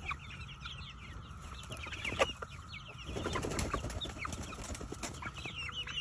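A flock of hens clucking in many quick, short calls while feeding on cicadas, with a louder rustling scuffle about three seconds in.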